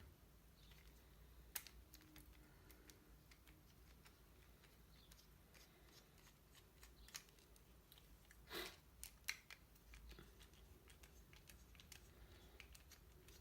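Mostly near silence with a scattered handful of faint clicks and small metal knocks, the loudest a little past halfway: a T10 Torx driver working the pivot screws of a balisong knife held with its handles locked together.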